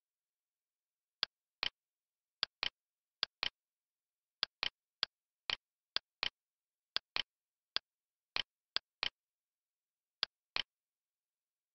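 Computer mouse button clicks, often in quick press-and-release pairs, at an irregular pace, with nothing audible between them.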